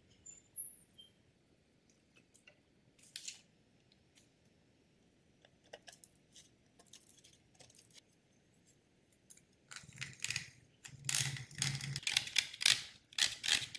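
Scissors trimming a dried activated-carbon air electrode on stainless steel mesh: a few faint, scattered snips and clicks, then denser crackling and crunching near the end as the brittle carbon-coated mesh is handled.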